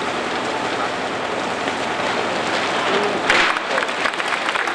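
A crowd applauding, steady clapping from many hands with some voices mixed in.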